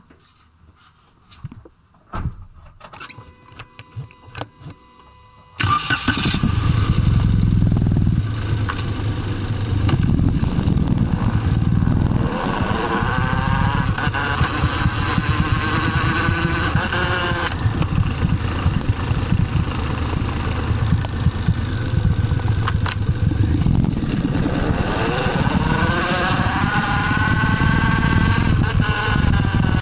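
Suzuki Celerio running under way, with a whine that twice rises in pitch as it goes: the gearbox noise the owner hears in second and fifth gear, still present after the gearbox oil was checked. A few faint clicks and a short tone come before the car sound, which starts suddenly a few seconds in.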